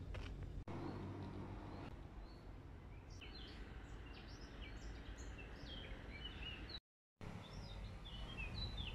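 Small songbirds chirping in woodland: many short, high calls from about three seconds in, over a low steady rumble. The sound drops out completely for a moment near the seven-second mark.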